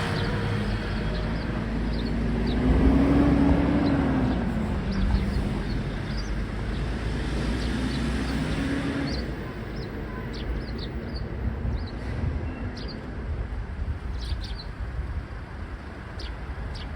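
A passing vehicle's engine hum, swelling about three seconds in and then fading, over a low rumble, with short high bird chirps scattered throughout.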